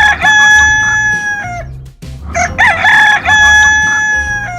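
Rooster crowing twice in a row: a long, loud cock-a-doodle-doo that ends with a short drop in pitch, then a second one just like it.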